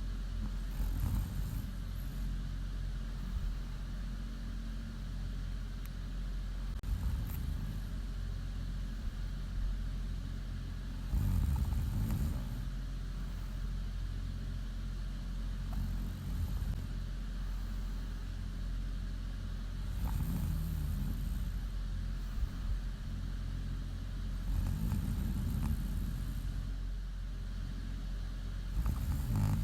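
A woman snoring in her sleep, one snore about every four to five seconds, over a steady low hum.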